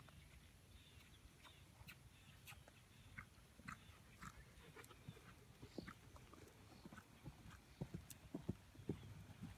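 Faint, soft hoofbeats of a horse cantering on arena sand, louder and more frequent near the end.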